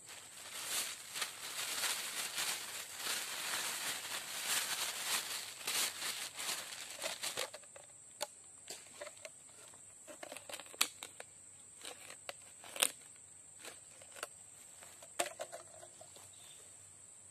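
Close rustling and crinkling with scattered clicks and taps as an angler handles his tackle and catch. The rustling is dense for the first seven seconds or so, then thins to occasional clicks and rustles. A steady high insect drone runs underneath.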